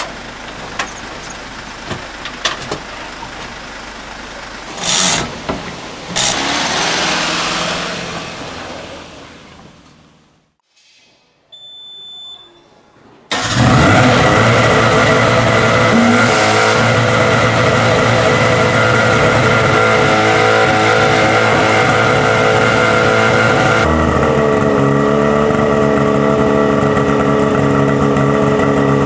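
Portable fire pump's engine running steadily under load while it sucks water from a pool through a floating strainer. It starts abruptly about halfway through, after a brief near silence, and its note changes slightly near the end. Before that come scattered clicks and two loud knocks over a fainter background.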